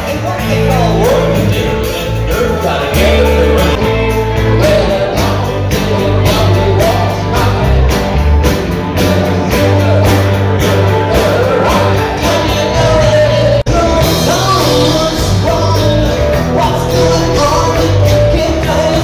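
Live rock band playing with sung vocals over acoustic and electric guitars, bass and a drum kit keeping a steady beat. The sound drops out for an instant about fourteen seconds in.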